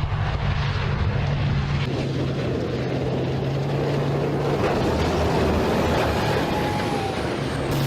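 Steady motor drone with a low hum, starting suddenly and running at an even level, like a vehicle engine running.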